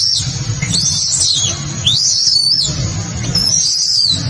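Newborn macaque screaming: high, arching shrieks, about one a second, over a steady low rumble.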